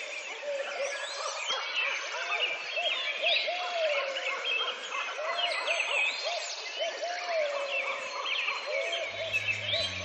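Chorus of many songbirds singing, with a lower bird calling over and over in short rising-and-falling notes. Music with a low bass comes in near the end.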